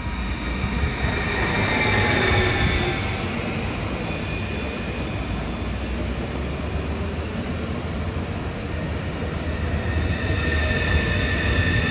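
A double Stadler FLIRT electric multiple unit (TILO RABe 524) running past at speed: a steady low rumble of wheels on the rails, with high whining tones over it that swell about two seconds in and again near the end.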